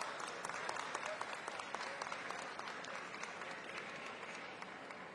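Audience applauding, a dense patter of many hands clapping that thins and fades toward the end.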